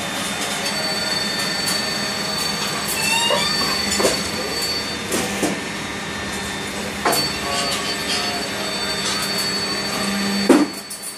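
Roll forming machine running, metal strip being drawn through its forming rollers with a steady hum and high whine, and several sharp metal knocks; the loudest knock comes near the end.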